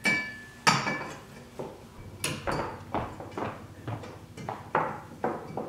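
Metal parts of a ceiling fan's canopy and mounting hardware clinking and knocking as they are fitted together at the ceiling mount: a string of irregular sharp clinks and taps, about two a second, the first with a brief metallic ring.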